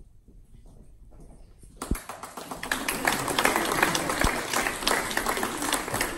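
Audience applauding, starting about two seconds in and quickly swelling into steady clapping.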